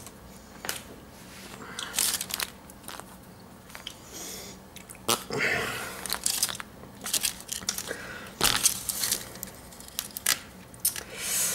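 Irregular clicks, creaks and rustles of a small plastic surprise-egg toy capsule being squeezed and pried at by hand, with the foil wrapper crinkling. The strongest scrapes come about halfway through and again after eight seconds.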